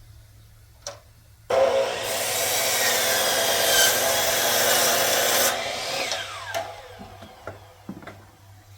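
A power saw cuts wood, starting suddenly about a second and a half in and running loud for about four seconds. It is then let off and its motor winds down with a falling pitch, followed by a few light knocks.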